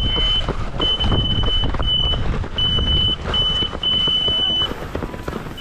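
Electronic beeping at one high pitch, in uneven runs from short beeps to nearly a second long, stopping near the end, over running footsteps and wind rumble on the microphone.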